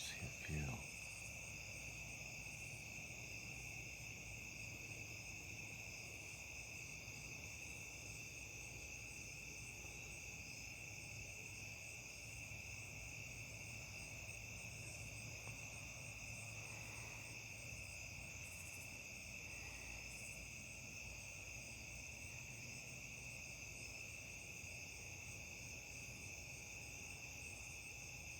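Night chorus of crickets and other insects: a steady, unbroken chirring at several pitches at once. Just after the start, a brief sound slides sharply down in pitch.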